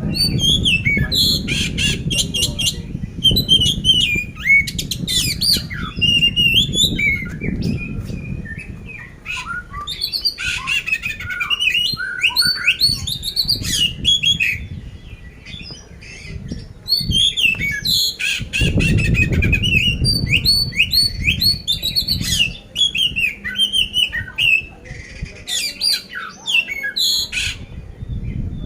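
Kacer poci (Oriental magpie-robin) singing a fast, varied song of harsh chirps, squawks and whistles, in phrases broken by a few short pauses: the rough 'isian kasar' fill that keepers prize in a contest bird.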